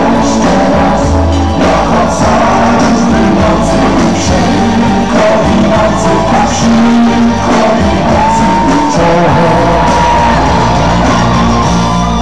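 Live pop band playing through a stage PA with singing over it, a steady drum beat, guitars and keyboards, heard from the crowd.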